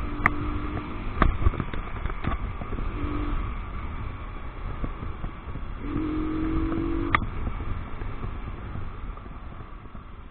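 Romet ADV motorcycle riding at a steady town speed, its engine running under road and wind noise heard from the rider's seat. A few sharp clicks cut through, and the sound eases off near the end.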